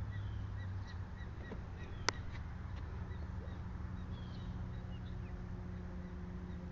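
Small birds chirping in short repeated notes, with a few falling chirps, over a steady low hum. A single sharp click comes about two seconds in.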